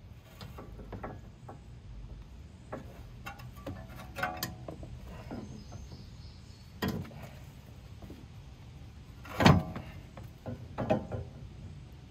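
Irregular metal knocks and clunks from a new front coil-spring strut assembly of a BMW X5 (E53) being handled and fitted into place by hand. The loudest knock comes about nine and a half seconds in.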